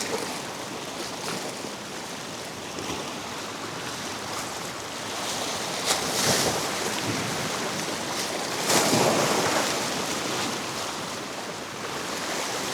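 Ocean surf washing in, with wind on the microphone. The wash swells louder about halfway through and again about three-quarters of the way, and there is a single sharp click near the first swell.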